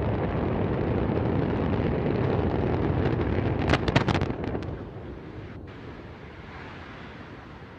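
Roar of the Antares rocket's twin AJ26 first-stage engines. About four seconds in, a cluster of sharp cracks and pops, the loudest moment, comes as the rocket fails and explodes. The roar then falls away to a much quieter rumble.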